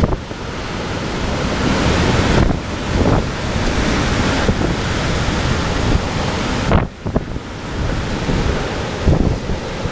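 Hurricane-force wind gusting hard with heavy rain, the gusts buffeting the microphone in surges. The noise drops for a moment about seven seconds in.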